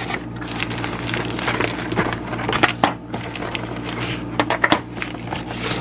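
A cardboard shipping box being opened and handled: rustling and crinkling of cardboard with scattered sharp clicks and knocks, over a steady low hum.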